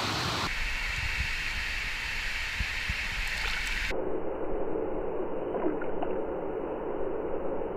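Steady rush of flowing river water close to the microphone, with a few faint knocks. About four seconds in the sound suddenly turns muffled, as the camera dips to the water's surface.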